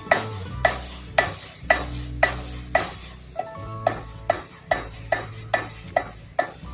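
Blacksmith's hammer striking hot iron on an anvil in a steady rhythm, about two blows a second, each blow ringing briefly.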